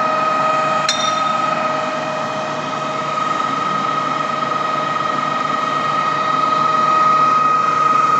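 Truck-mounted concrete pump's engine and hydraulics running steadily as its boom is folded, with a high, steady whine over the machine noise. A single sharp metallic click about a second in.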